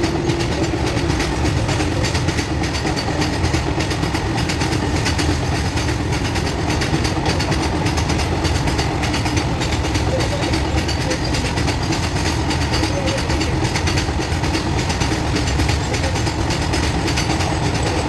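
Goods train wagons passing at high speed, the wheels clattering over the rail joints in a steady, continuous racket of track noise.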